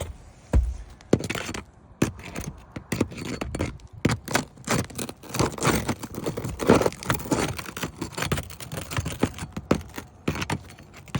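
Metal pry bar scraping and clicking against asphalt roof shingles, working under them to break the tar seal strips, with many irregular short taps and scrapes.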